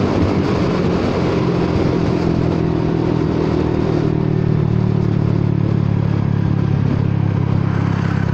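Honda Forza 300 scooter's single-cylinder engine and exhaust running at a steady cruising speed, with wind noise over it. The exhaust note is abnormally loud, which the rider puts down to a broken exhaust pipe.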